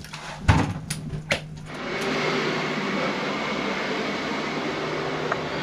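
A few sharp knocks, then from about two seconds in, strong blizzard wind blowing steadily on the microphone.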